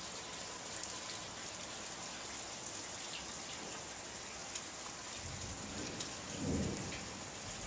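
Steady rain falling, with a low rumble of thunder that starts about five seconds in, swells and then fades.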